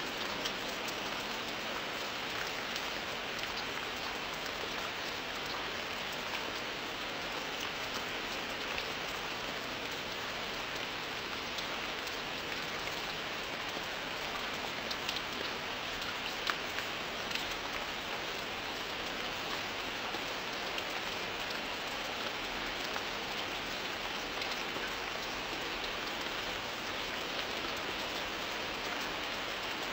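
Steady rain falling, an even hiss dotted with the ticks of single drops.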